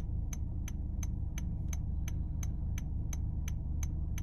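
Toyota Yaris Cross turn-signal indicator sound, the second of its three selectable tones, ticking evenly at about three ticks a second over a low steady cabin hum.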